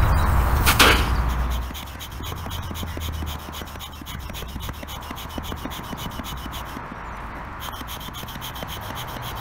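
Upright hand pump being worked to inflate a Stearns BackCountry inflatable canoe, with repeated rasping, rubbing strokes as air is pushed through the hose into the canoe's air cells. It opens with a low rumble and a sharp knock about a second in.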